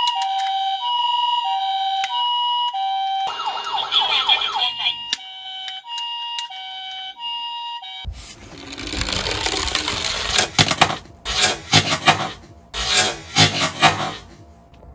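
A hi-lo ambulance siren, two tones alternating steadily, runs for about the first eight seconds, with a short burst of other sound about four seconds in. Then a die-cast Tomica garbage truck rattles down a plywood slope and knocks several times as it tips and tumbles.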